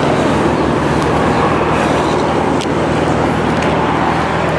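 A car engine running steadily at idle close by, with an even low pulse.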